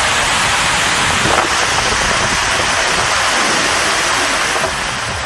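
Surplus water rushing through the open spillway shutters of a dam filled to full capacity: a loud, steady rush that eases slightly near the end.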